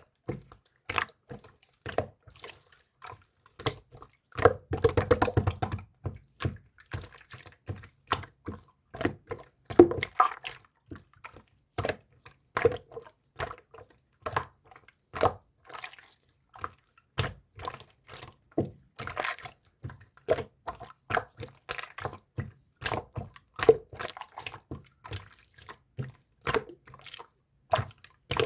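Slime being squeezed and poked by hand: an irregular run of short pops and clicks, with a longer, denser squishing stretch about four to six seconds in and another around ten seconds.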